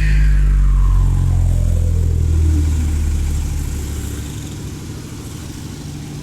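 Loud sound system playing a falling pitch sweep over heavy, sustained bass tones. The sweep glides from a high whine down to a low tone over the first two to three seconds, and the bass then fades somewhat.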